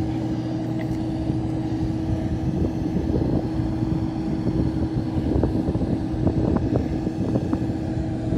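A steady machine hum at an airport apron: a droning tone over a low rumble, with rougher, uneven buffeting and a few light clicks in the second half.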